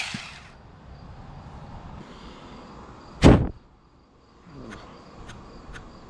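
A Saker 4-inch 20-volt battery mini chainsaw winds down and stops, then a low steady outdoor background with one short, loud thump about three seconds in and a few faint clicks near the end.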